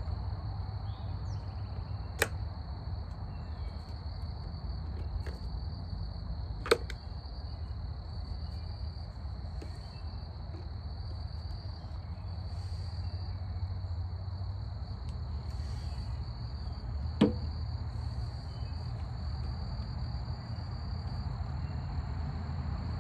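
Three sharp clicks, spread about two, seven and seventeen seconds in, from hand tools working on a riding mower's fuel line clamps and fittings. Under them runs a steady high insect trill and a low background rumble.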